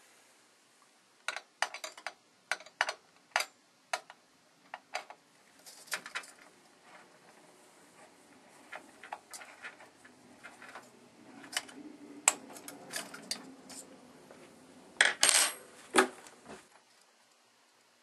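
Irregular sharp clicks and light metallic taps of hands working a fan cable's plug onto the CPU fan header in the cramped space behind a Noctua NH-D14 heatsink, with fingers and plug knocking against the heatsink and the metal case. The loudest cluster of clicks comes near the end, then the handling stops.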